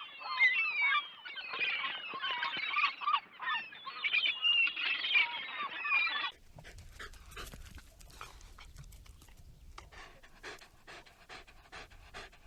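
A burst of many high, chirping animal calls for about six seconds, then a sudden change to a dog panting: quick, even breaths at a lower level.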